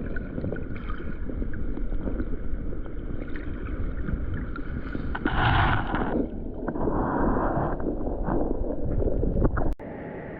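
Wind rumbling on the microphone over moving seawater, with a couple of louder rushing splashes in the middle. The sound cuts off suddenly near the end.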